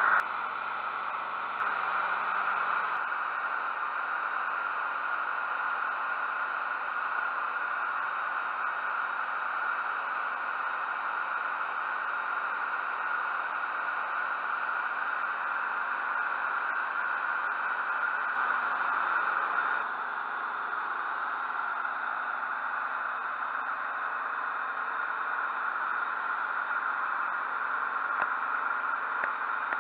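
Steady cabin noise from a Zlín Z-42's six-cylinder engine and propeller in flight, an even rushing drone with a couple of slight steps in level.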